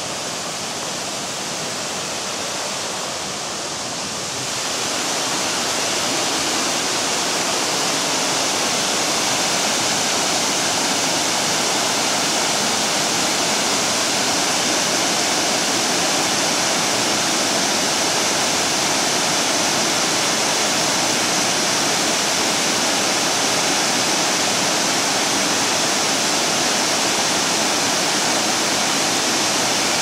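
Sai Yok Yai Waterfall's wide cascade pouring over rock ledges into the river: a steady, loud rushing of falling water that grows louder about four seconds in and then holds steady.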